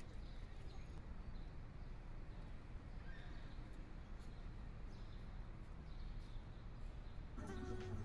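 Quiet low hum of room tone with faint, scattered high chirps. Soft background music comes in near the end.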